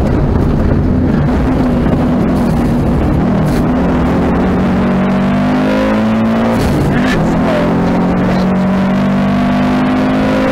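Rally car's engine heard from inside the cabin under hard driving, loud and steady over road noise. Its pitch climbs as the car accelerates out of a bend, drops suddenly about six and a half seconds in, then climbs again.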